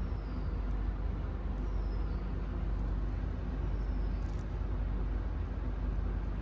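Steady low background rumble with a faint short high squeak repeating about once a second.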